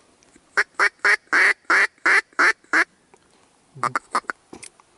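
Duck quacking loudly and close: a run of about eight quacks over two seconds, then a quicker, fainter run of short quacks near the end.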